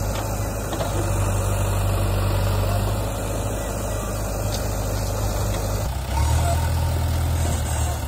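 JCB 3DX Xtra backhoe loader's diesel engine running steadily, its note shifting about six seconds in as the machine changes its work.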